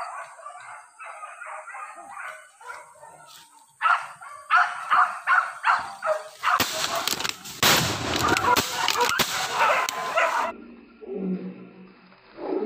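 A pack of hunting dogs yelping and barking in rapid, overlapping cries, the sound of dogs giving chase on a wild pig's trail. The barking grows louder about four seconds in. From about six seconds, loud rustling and crashing of brush joins it, then the sound cuts off abruptly.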